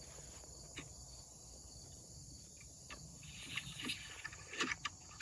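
Faint, steady high-pitched trilling of insects such as crickets, with a few scattered short clicks and taps, most of them in the second half.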